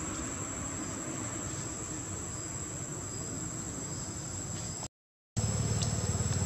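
Insects droning outdoors, a steady high thin whine over a background hiss. About five seconds in, the sound cuts out completely for half a second, then comes back with a louder low rumble added.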